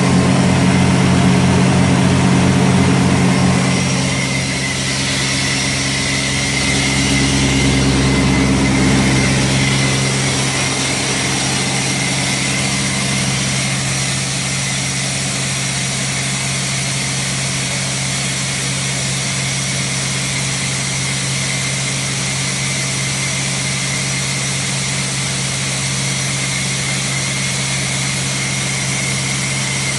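Komatsu 35Z portable screw air compressor running steadily, an engine drone with a steady high whine and hiss over it. It runs louder for the first few seconds and again briefly, then settles to an even run from about ten seconds in.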